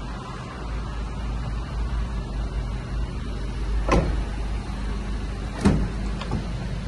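Steady low rumble and hum, broken in the second half by two sharp knocks about two seconds apart, then a softer one.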